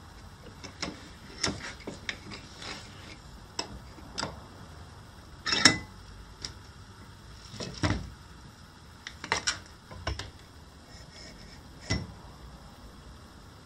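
Scattered knocks and clunks of wood and metal as a short log is set and clamped in a metal bench vise. About a dozen separate knocks, the loudest a little past halfway through.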